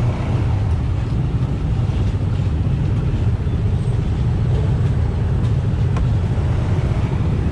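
Motorbikes and scooters crawling in a traffic jam, a steady low engine rumble with no distinct events.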